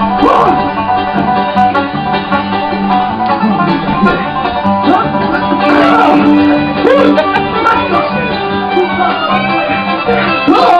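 Bluegrass music led by banjo, with guitar and fiddle.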